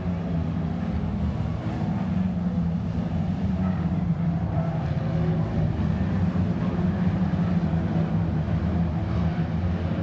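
Several Lightning Rod oval-racing cars lapping the track together, their engines blending into a steady, continuous drone.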